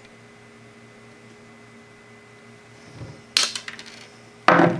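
Flush cutters snipping through a plastic header-pin strip: a sharp snap with a few small ticks about three and a half seconds in, then a louder short clatter near the end as something small and hard is put down on the desk.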